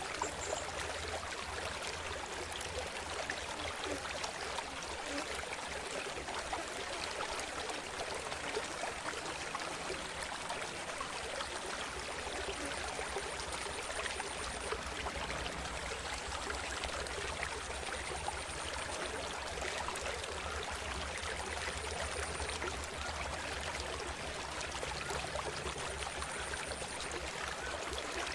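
Water of a river or waterfall rushing in a steady, even flow.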